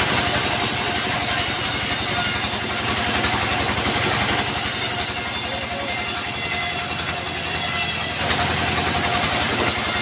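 Vertical band sawmill cutting a log slab into plank: a high hiss of the blade in the wood over the fast, steady chugging of its diesel engine. The cutting hiss stops for about a second and a half around three seconds in, then comes and goes near the end as the slab is fed.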